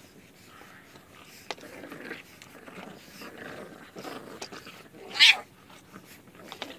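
A puppy's short, loud yelp about five seconds in, rising in pitch, after several softer noisy sounds.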